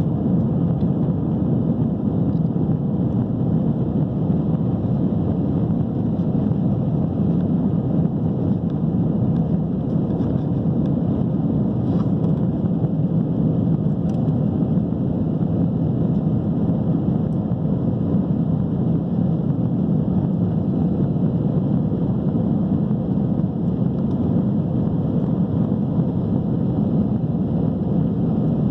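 Steady loud cabin noise of a Boeing 737-800 during takeoff, its CFM56-7B turbofan engines at high power, heard from inside the passenger cabin as an even low rush with no change in level.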